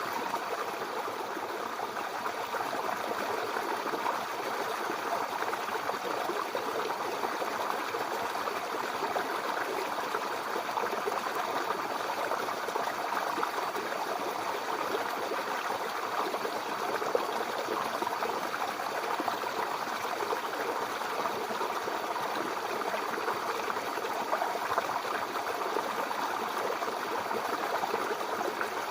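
Babbling brook: water running steadily with a continuous gurgling and trickling flow, even in level throughout.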